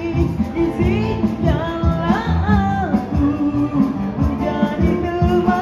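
Amplified live band music: a man singing into a microphone, his voice gliding between held notes, over guitar accompaniment with low bass notes and a steady beat.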